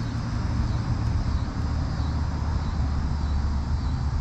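Steady low rumbling noise with a faint hiss above it, even and unbroken.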